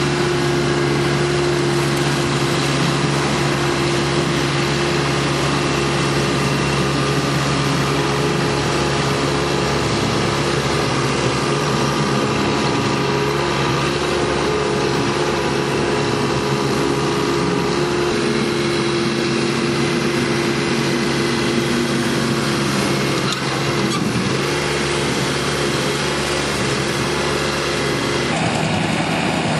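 Engine of a Truxor amphibious weed cutter running steadily at constant speed, its note changing slightly near the end.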